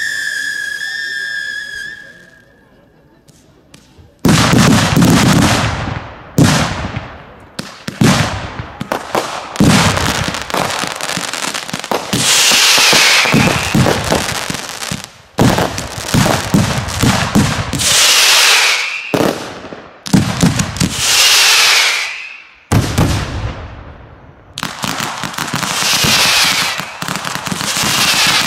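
Daytime fireworks. A whistling firework fades out with falling pitch. After about two seconds of quiet, a barrage begins: loud bangs and screaming whistles that fall in pitch, coming in repeated volleys.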